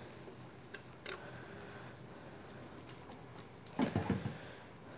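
Quiet kitchen room tone with a few faint clicks, then a short clatter of several knocks about four seconds in, from the metal box grater being handled against the wooden cutting board once the cheese is grated.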